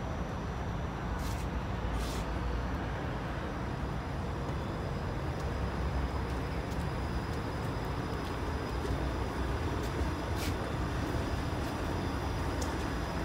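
Bombardier Flexity Outlook low-floor streetcar rolling slowly past on the loop track: a steady low rumble of the car in motion, with a few faint clicks.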